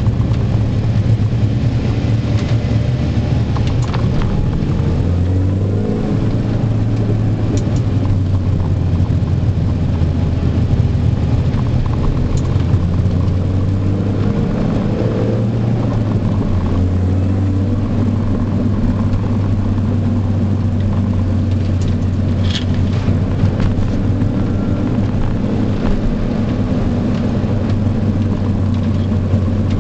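Mini John Cooper Works' supercharged four-cylinder engine heard from inside the cabin while driving, a steady drone mixed with road and tyre noise. The engine note shifts in pitch about five seconds in and again a little past the middle.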